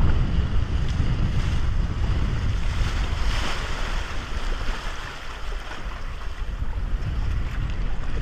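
Wind buffeting the microphone over water rushing and splashing along a windsurf raceboard's hull as it sails, with a burst of spray hiss about three seconds in.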